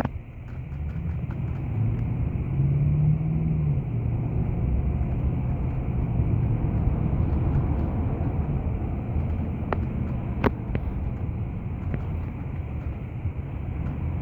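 Car driving on a road: steady engine and road-noise rumble, with the engine note rising for a second or two about two seconds in. A few sharp clicks come about ten seconds in.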